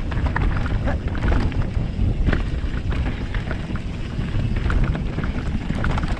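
Mountain bike riding fast over a rough, rocky trail: tyre and gravel noise with frequent rattles and knocks from the bike, over a low wind rumble on the microphone. It is picked up by a GoPro Hero 7 fitted with a Wind Slayer windshield.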